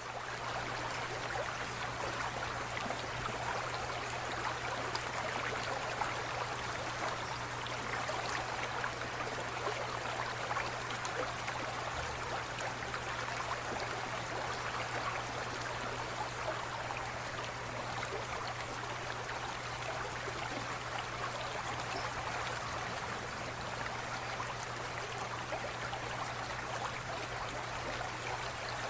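Aquarium water trickling and bubbling steadily, with a constant low hum underneath.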